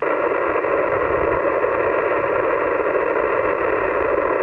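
Receiver static from a Yaesu FT-991A transceiver's speaker on the 20-meter band: a steady hiss of band noise, narrowed to the voice passband, cutting in abruptly as he stops transmitting and stands by. No station is yet heard over the noise, in band conditions that are rough.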